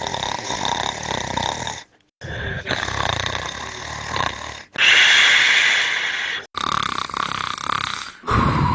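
A man snoring, heard as a string of separate snore recordings spliced together: about four stretches of snoring, each starting and stopping abruptly, the loudest one about five seconds in.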